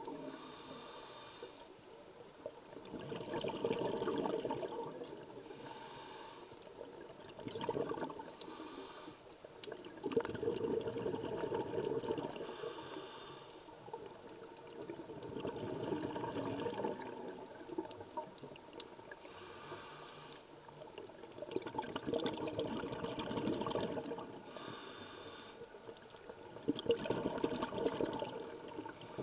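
Scuba diver breathing through a regulator underwater: a short hiss on each inhale, then a longer rush of exhaled bubbles, in slow cycles about every six seconds.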